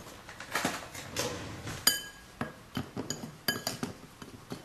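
Metal spoon clinking and scraping against a ceramic bowl while stirring dry flours together, with one ringing clink about two seconds in followed by a run of lighter taps.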